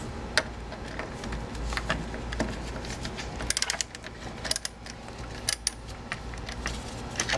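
A 10 mm socket wrench working the battery terminal nut: irregular sharp metallic clicks and clinks, with quick runs of clicks about three and a half and five and a half seconds in.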